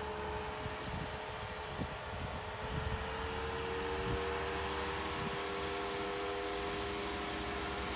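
Jeep Wrangler Rubicon's engine running steadily at low revs while crawling under load up a rock slope, its note rising slightly about three seconds in.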